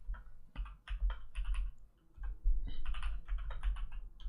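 Typing on a computer keyboard: two quick runs of keystrokes with a short pause about two seconds in.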